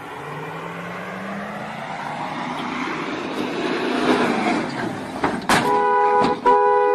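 A vehicle approaching, its noise growing steadily louder and slightly rising in pitch. About five and a half seconds in, a loud horn sounds a steady chord in two blasts, a short one then a longer one.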